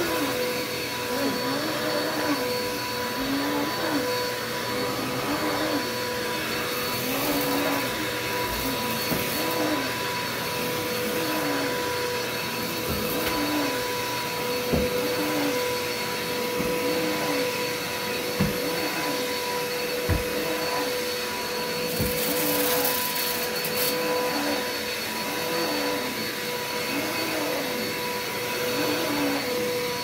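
Dirt Devil Express upright vacuum cleaner running steadily on carpet, with a constant motor whine. A lower note rises and falls about once a second as the vacuum is pushed back and forth, with a few short knocks.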